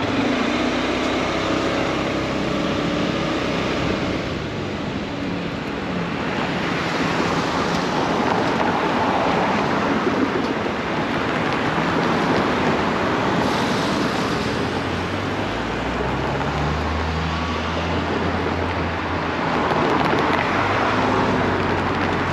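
Steady rush of wind and road noise on a motorcycle riding through city traffic, with a low engine hum coming up in the second half as cars pass.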